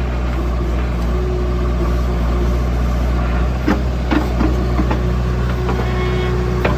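Heavy diesel engine running steadily at low revs, with a few short knocks a little past halfway and another near the end.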